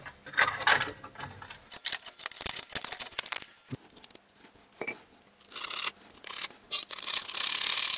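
Sharp metallic clicks and clinks as a new disc brake pad is handled, then a steady scraping as burrs and stuck paint are scraped off the pad's steel backing plate.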